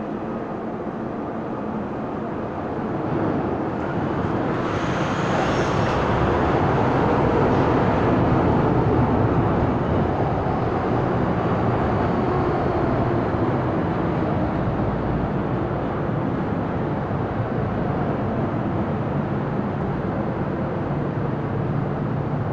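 MTR Island Line M-Train entering an underground platform: the rumble of wheels and traction motors builds over the first few seconds, with a brief high hiss, then runs on steadily and a little lower as the cars pass.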